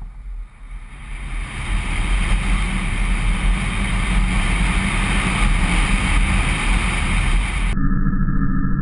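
Onboard-camera audio from a small electric RC delta pusher wing in flight: a steady rush of wind over the microphone mixed with the buzz of the electric motor and propeller, building over the first couple of seconds and then holding steady. Near the end the sound suddenly turns duller, losing its high end.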